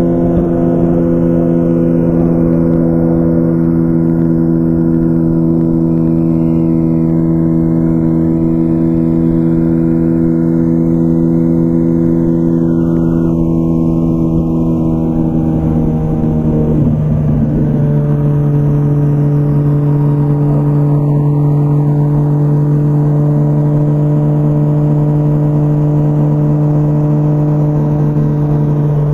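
2004 Honda CBR1000RR Fireblade's inline-four engine through a Jardine titanium exhaust, running at a steady cruising speed. Its pitch steps down a little about seventeen seconds in, then holds steady.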